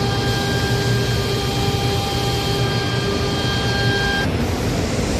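Machinery running: a loud steady rushing hum with a high, even whine on top. The whine cuts off suddenly near the end while the hum carries on.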